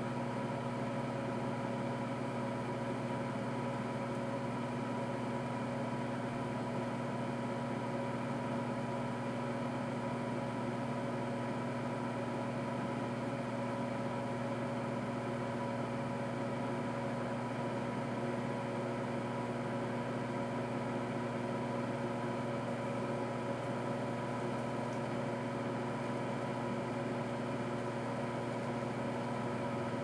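Rival microwave oven running: a steady, unchanging hum, with no pops or bangs.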